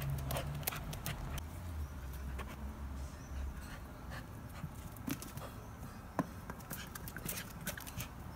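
Bernese Mountain Dog puppy panting, with scattered sharp clicks and taps of its paws on stone paving.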